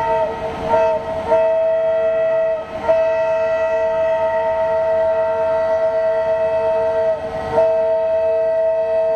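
Train horn sounding a long, steady two-tone blast, held for several seconds with a few brief breaks.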